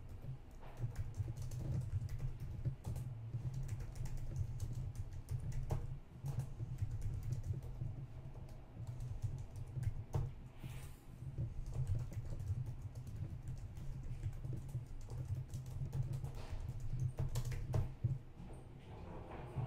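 Typing on a computer keyboard: a quick, irregular run of key clicks with short pauses, over a steady low hum.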